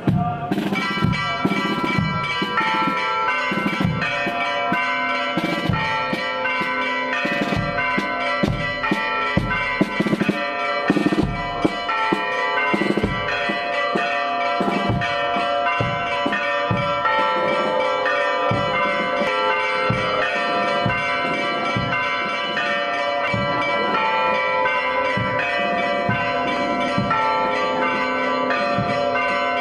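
Church bells pealing, struck again and again at short, uneven intervals so that their ringing overlaps into a continuous chime.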